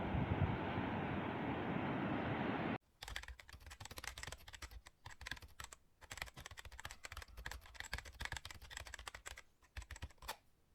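Steady wind rushing over the microphone for about three seconds, cutting off abruptly. Then quiet, irregular light tapping of raindrops striking the camera.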